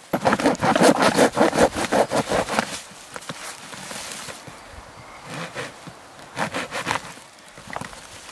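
Hand saw cutting through a birch log in quick back-and-forth strokes, about four a second, with a short pause before a second, quieter run of strokes.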